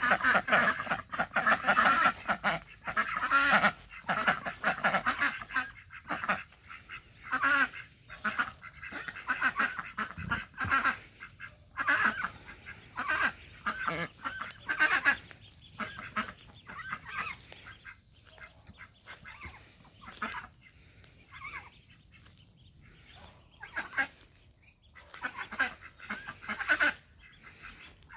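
Dabbling ducks calling over and over, a quick run of loud quacks in the first few seconds that thins out into scattered, quieter calls later on.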